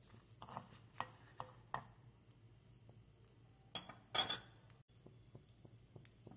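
A steel spoon stirring mustard seeds and dried red chillies in a little oil in a nonstick kadai, with a few light scrapes and taps. About four seconds in, the mustard seeds begin popping in the hot oil: several sharp pops in quick succession, then faint scattered ticks.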